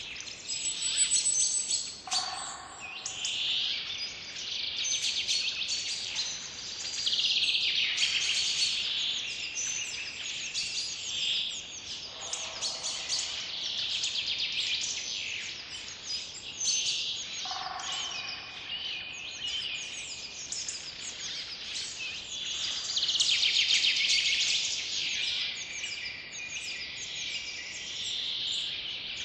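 A chorus of songbirds in forest ambience: many chirps and fast trills overlapping steadily, with a lower-pitched call now and then.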